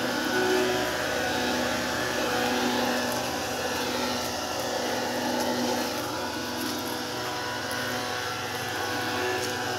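SMQRT-360 handheld electrostatic sprayer running steadily, its blower fan whirring as it throws a fine mist into the foliage.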